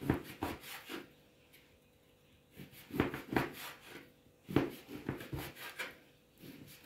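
Kitchen knife slicing a rolled, pan-dried flatbread dough into noodle strips on a plastic cutting board: quick cuts that tap the board, in four short runs with a longer pause about a second in.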